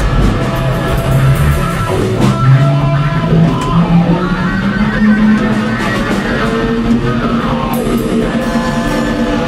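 Live blues-rock boogie: an electric guitar solos over drums and bass guitar, its notes climbing in pitch over the first few seconds and then held.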